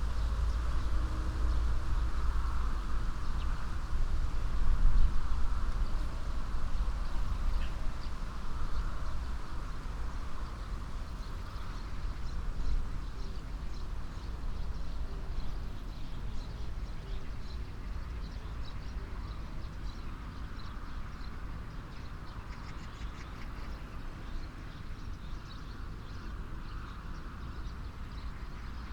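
Wind blowing through the leaves of an old alder tree, with a low rumble of wind on the microphones; it gusts hardest about five seconds in and then slowly eases. Faint high chirping calls come through in the second half.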